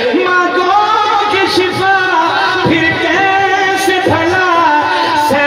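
A man singing a drawn-out melodic line of devotional verse into a microphone, amplified over loudspeakers, his pitch sliding between held notes.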